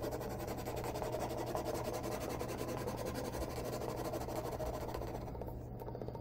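Felt-tip permanent marker scribbling rapidly back and forth on a hard plastic computer case, a continuous scratchy rubbing that stops about five seconds in. A low steady hum runs underneath.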